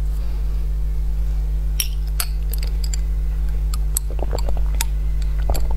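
Sharp clicks and clinks of a skull-shaped glass bottle and a straw being handled, then sips through the straw from about four seconds in, over a steady low electrical hum.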